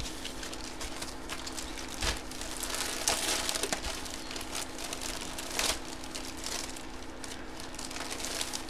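Clear plastic bag crinkling and crackling as it is handled, with a few louder crackles about two, three and nearly six seconds in.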